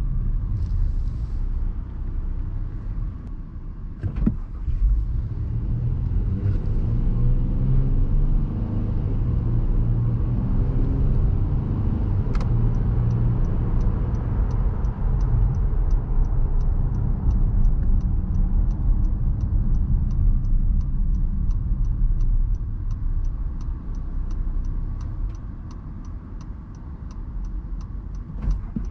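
In-cabin sound of a 2020 Honda Pilot's 3.5-litre V6 and tyre rumble on the road: the engine note climbs as the SUV accelerates a few seconds in, then settles into a steady cruise and fades as it slows to a stop near the end. From about halfway a turn signal ticks steadily, two or three clicks a second.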